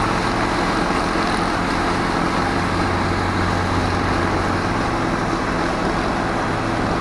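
Boat motor running steadily under way, with wind and water noise over the hum.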